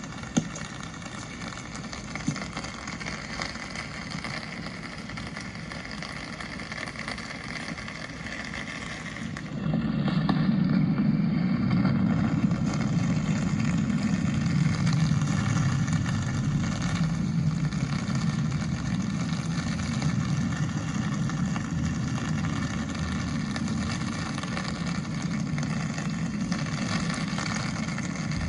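City street ambience in the rain: a steady hiss of rain with passing traffic. About a third of the way in, a louder low vehicle rumble sets in and holds.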